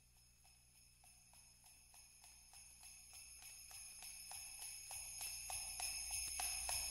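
Sleigh bells shaken in a steady beat, about four shakes a second, fading in from very faint and growing louder: the opening of a recorded Christmas song, just before the band comes in.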